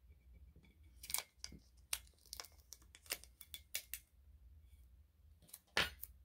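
Clear transfer tape and small vinyl decal pieces being handled and peeled, giving a run of short crinkles and light clicks, with a louder crackle near the end.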